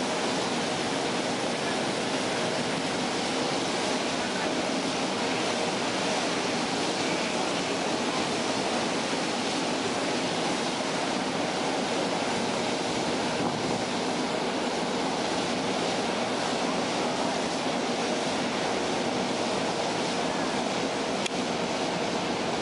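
Steady rushing noise of wind and water alongside a ship's hull, with a faint low hum beneath it.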